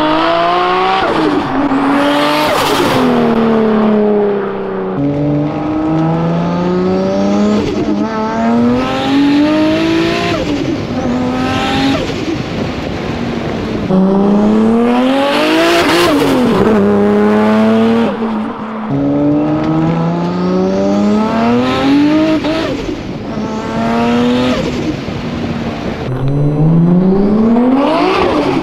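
High-performance car engines accelerating hard. The pitch climbs and then drops sharply at each gear change, over several separate runs one after another.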